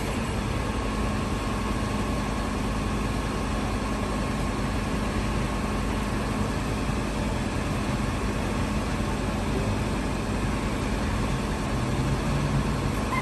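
Tilt-tray tow truck's engine idling steadily, an even low hum with no change in pitch.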